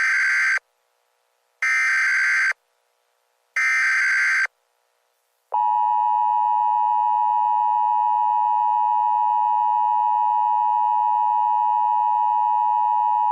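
Emergency Alert System tones: three short bursts of SAME header data, a rapid warbling two-pitch digital tone each under a second long, spaced about two seconds apart. About five and a half seconds in, the two-tone attention signal starts, a steady dual tone just under 1 kHz held for about eight seconds.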